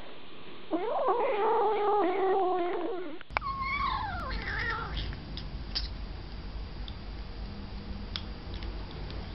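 A kitten gives a long wavering cry lasting about two and a half seconds. After a cut, a second kitten gives a shorter falling cry, followed by small scattered clicks of eating from a bowl.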